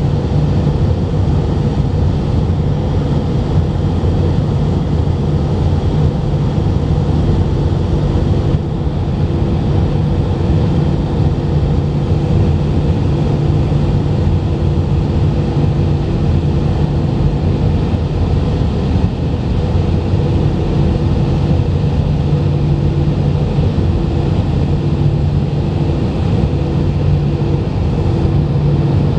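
Steady cabin drone of an Airbus A319 airliner in flight, heard from a window seat over the wing: engine and airflow noise with a strong low hum, and a fainter higher hum that comes in about seven seconds in and wavers on and off.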